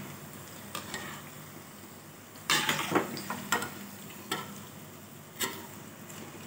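Maggi noodle balls deep-frying on slow heat in a stainless steel kadhai, a steady gentle sizzle of oil. A metal slotted spatula scrapes and clinks against the pan several times as the balls are stirred and lifted, loudest about two and a half seconds in.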